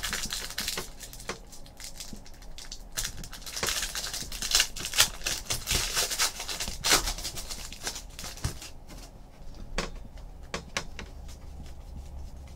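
Foil wrapper of a pack of baseball trading cards being torn open and crinkled, then the cards being slid and flicked through in the hands as separate ticks for the last few seconds.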